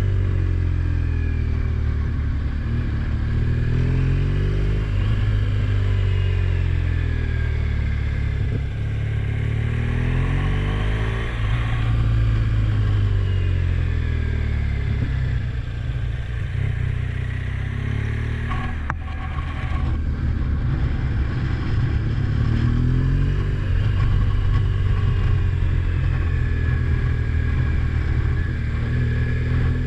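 Motor vehicle engine running under way, its pitch rising and falling again and again as it speeds up and slows. A single sharp click about two-thirds of the way through.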